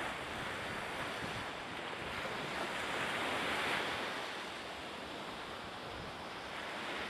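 Steady rushing wind in an open marina, with no engine or voice, swelling briefly a few seconds in.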